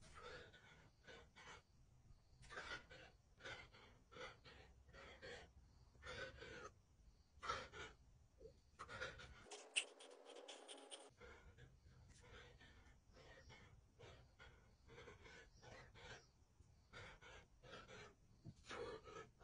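A man breathing hard in short, faint, uneven breaths, roughly one or two a second, from the exertion of doing push-ups.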